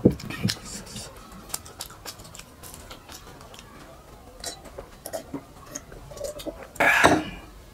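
Close-up eating and drinking sounds: scattered small clicks of fingers on a clay plate and mouth noises, then drinking from a clay cup. A louder, noisy sound lasting about half a second comes near the end.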